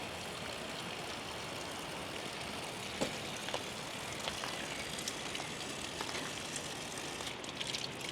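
Steady rushing of a mountain stream, with scattered light clicks and crunches of footsteps on the path, more of them near the end.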